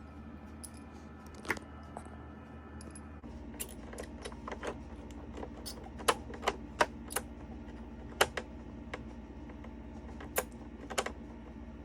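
Irregular sharp clicks and taps of small screws being driven and the crossfader's metal mounting plate being handled as the fader is screwed into the DJ controller, over a faint steady hum.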